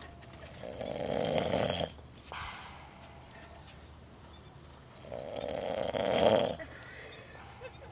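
A sleeping person snoring: two loud snores about four seconds apart, each swelling over about a second and cutting off sharply, with a softer breath between them.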